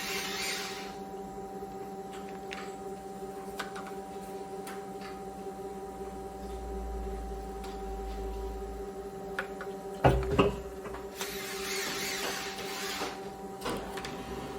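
Clicker die-cutting press running with a steady electric hum. A sharp double knock comes about ten seconds in. Hissing bursts come near the start and again around eleven to thirteen seconds.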